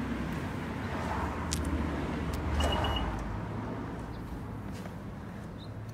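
Low rumble around a parked 10th-gen Honda Civic Si, with a short high beep about two and a half seconds in and a steady low hum from about three seconds on, ahead of its cold start.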